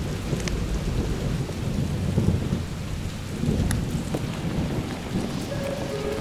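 Freight train of autorack cars rolling past, a steady low rumble of wheels on rail. Rain patters over it, with drops ticking on the camera.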